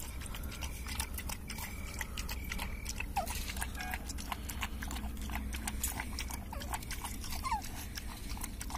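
Puppies suckling from their mother and dogs lapping milk from a steel bowl: irregular wet clicking, several smacks a second, with two short squeaks.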